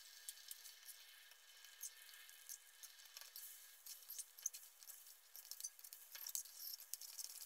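Faint sizzling of beaten eggs cooking in a little oil in a metal pan, with light scrapes and clicks of a metal ladle stirring and breaking them up.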